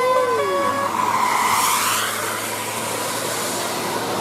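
A telolet bus horn, a set of tuned air-horn trumpets, plays the last notes of its tune, stopping about a second in. The bus then goes close by with a rushing sweep of engine and tyre noise over a low engine hum.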